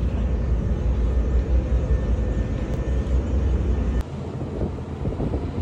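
Steady low rumble of a car ferry under way, its engines and hull throbbing deep and loud; about four seconds in it drops abruptly to a quieter, lighter rumble.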